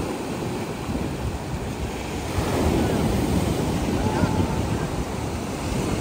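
Sea waves breaking and washing up a gravel beach, the surf growing louder a little over two seconds in.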